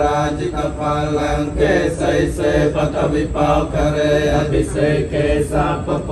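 Theravada Buddhist monks chanting a Pali blessing: a steady, continuous recitation with no pauses.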